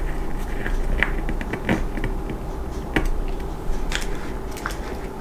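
Scattered light clicks and taps of plastic model-kit parts and a screwdriver as small screws are driven into the assembly.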